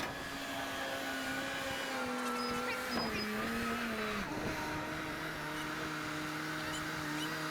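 An engine running steadily, its pitch wavering a little and then dropping to a lower, steady note about four seconds in.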